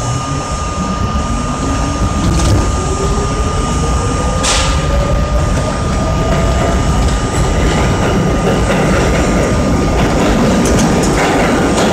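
R32 subway car pulling out of a station and picking up speed into the tunnel: a steady rumble of steel wheels on rail, a motor whine that rises in pitch over the first seven seconds or so, a steady high tone, and a couple of clicks from the track.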